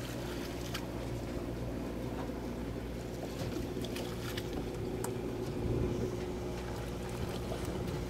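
A boat's engine idling with a steady low hum, with a few faint clicks over it.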